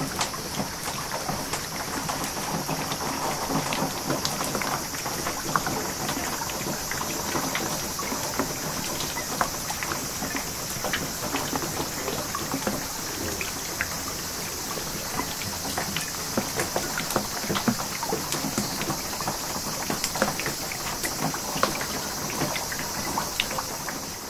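Heavy typhoon rain pouring steadily onto a garden, with runoff streaming over gravel and soil. Many sharp drop impacts tick throughout.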